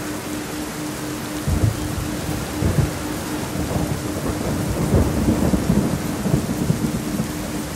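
Steady rain with thunder rumbling low, starting about a second and a half in and rolling on for several seconds. A faint low tone pulses steadily underneath.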